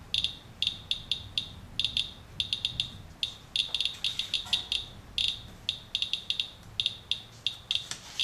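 Inspector Geiger counter chirping with random, irregular count clicks, several a second, as it counts radiation from a paper-towel wipe of rain residue covered by a plastic sheet to block alpha particles.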